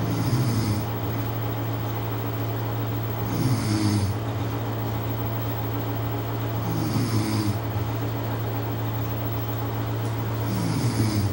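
A man snoring in his sleep: four snores about three and a half seconds apart, each under a second long and falling in pitch, over a steady low hum.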